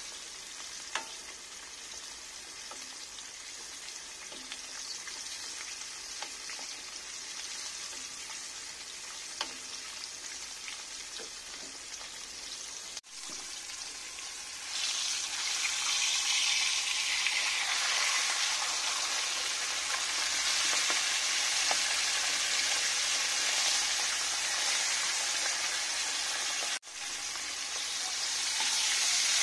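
Hot oil sizzling as a whole red tilapia deep-fries in a wok with oil ladled over it. The sizzle grows louder about halfway through, and a few light clicks of the metal ladle come in the first ten seconds.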